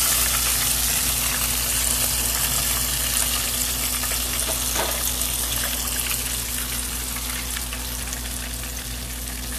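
Hot oil sizzling and bubbling around battered chicken wings deep-frying in a cast-iron pan. The sizzle slowly fades over the seconds.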